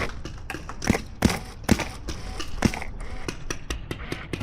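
A run of sharp, irregular knocks and pops, a few of them louder, over wind rumbling on the microphone.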